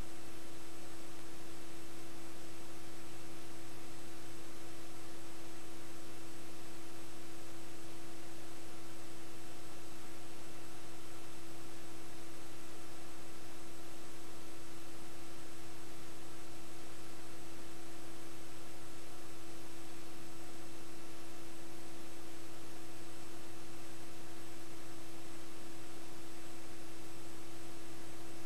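Steady electrical hum, one pitched tone with fainter higher tones, over a constant hiss: the noise of a blank audio track, with no sound from the game itself.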